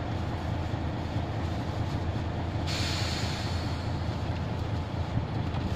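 Steady low rumble of a truck engine running, heard inside the cab. About three seconds in, a plastic bag crinkles and rustles for a second or two.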